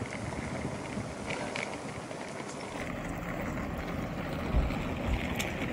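Steady low rumble of idling vehicles, with two dull low thumps near the end.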